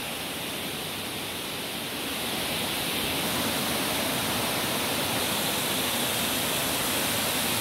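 Steady rush of stream water pouring over a small weir, a little louder from about two seconds in.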